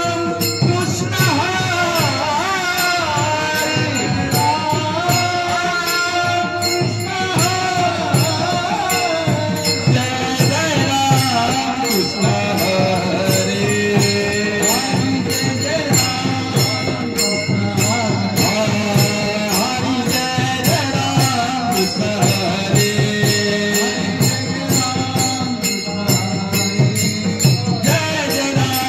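Marathi Varkari devotional bhajan music: a male lead voice singing over steady, evenly paced jingling hand-percussion and drum strokes.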